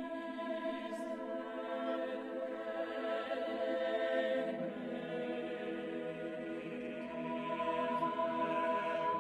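Chamber choir singing a cappella in long, sustained, overlapping held chords. Lower voices join beneath the chord about four seconds in.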